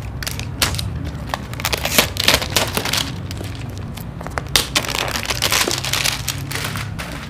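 Clear plastic shrink wrap crinkling and crackling as it is peeled and torn off a new phone's box, in irregular crackles.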